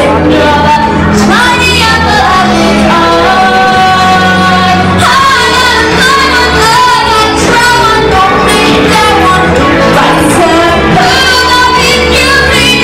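A female vocalist singing a show tune live with a band, a held, gliding melody over sustained bass and chords, in a large hall.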